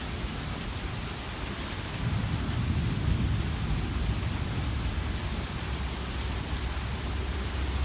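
Heavy tropical downpour pouring steadily, with a low rumble of thunder that swells about two seconds in and keeps rolling.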